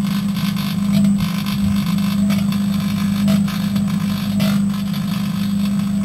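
A Sharp microwave oven runs with a steady electrical hum while the metal load inside arcs and burns. The arcing gives a continuous crackling hiss with irregular sharp snaps.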